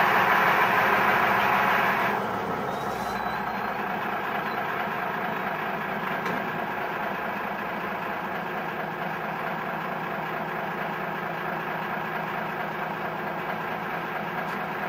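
Steady mechanical drone of machinery running, with a constant hum. A louder, higher rushing noise on top cuts off about two seconds in, and the steady drone carries on alone.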